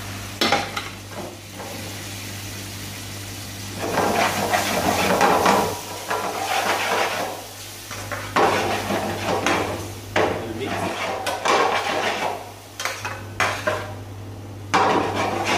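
Spaghetti in arrabbiata sauce being tossed and stirred in a metal frying pan on a gas burner: a metal utensil scrapes and knocks against the pan in repeated bursts, with the sauce sizzling, over a steady low hum.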